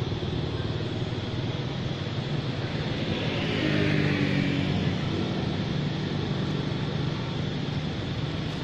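Steady engine hum of motor traffic, with one vehicle growing louder and passing closest about four seconds in, then fading back to the hum.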